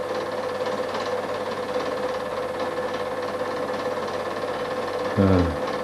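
Steady mechanical whirring hum of a home cine-film projector running. About five seconds in, a brief louder sound drops sharply in pitch.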